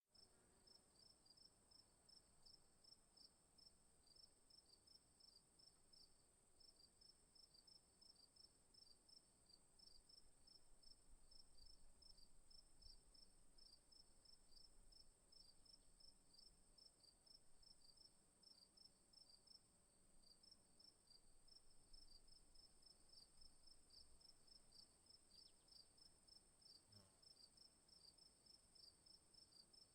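Faint insects chirping, most likely crickets: rapid, evenly spaced high chirps over a steady high-pitched drone.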